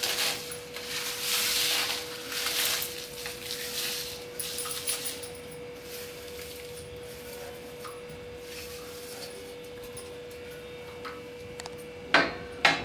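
Dried red chillies, sesame seeds and rock salt sliding and rattling from a steel plate into a steel kadai for the first few seconds, then only a steady faint tone, with two sharp knocks near the end.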